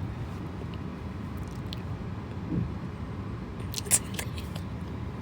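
Steady low road and engine rumble inside a moving car's cabin, with a few light clicks about four seconds in.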